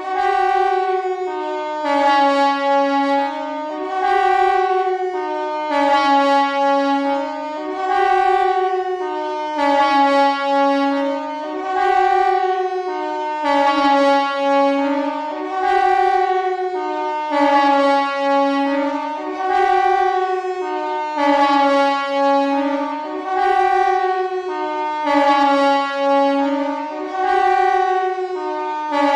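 KTG-10 pneumatic siren sounding the Swiss general alarm. Its loud howl swings up and down between a lower and a higher pitch every second or two, swelling with each rise.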